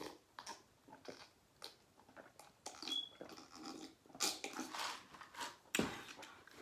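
Close-miked chewing of rotisserie chicken: soft, scattered mouth clicks and smacks, with a louder bump just before the end.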